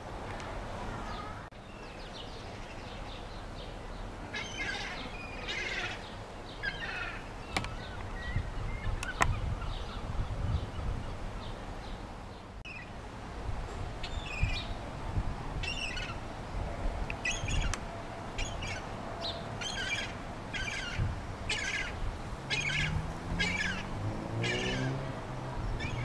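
Juvenile gulls calling: short, high, squeaky calls in repeated bursts that come thicker and more regularly in the second half, over a steady low rumble.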